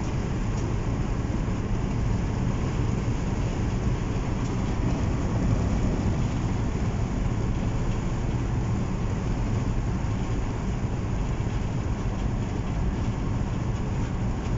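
Steady engine and road noise heard from inside a vehicle's cabin while driving at highway speed.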